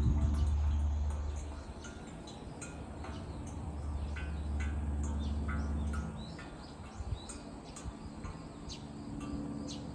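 Suikinkutsu water drops falling into a buried pot, making scattered, irregular ringing plinks, heard through a bamboo listening pipe. A low hum sits under them for the first second and a half and again about four to six seconds in.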